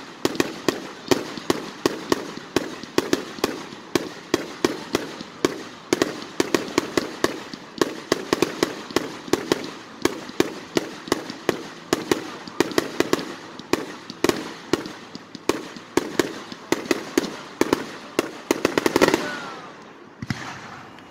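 Fireworks going off in a rapid barrage: sharp bangs and pops about three or four a second, each with a crackle after it, loudest and densest just before the end, then thinning out.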